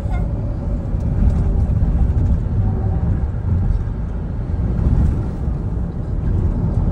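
Steady low rumble of road and engine noise heard inside a taxi cabin cruising at expressway speed.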